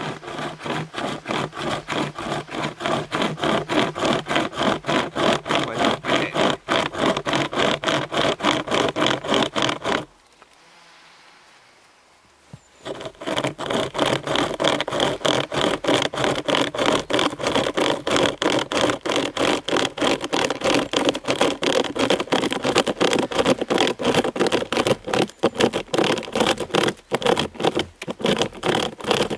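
Ultimate Survival Technologies SaberCut pocket chain saw, a chain with nylon straps, being pulled back and forth through a log, rasping in even strokes about three times a second. The sawing stops for about two and a half seconds some ten seconds in, then resumes.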